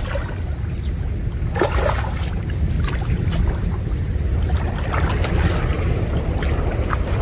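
Water sloshing and splashing as someone wades through shallow muddy water handling a cast net, loudest about a second and a half in. A steady low rumble of wind on the microphone runs underneath.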